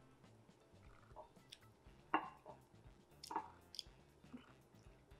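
Quiet mouth sounds of eating plantain fufu and peanut soup by hand: soft chewing with a few short wet smacks, the loudest about two seconds in and two more about a second later.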